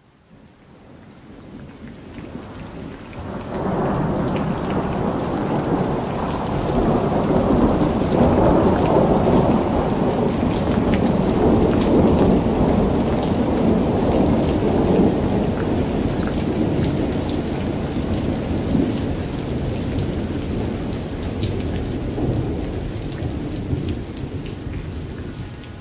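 Thunderstorm: heavy rain pattering with a deep rolling rumble of thunder. It swells up over the first few seconds, holds and then dies down near the end.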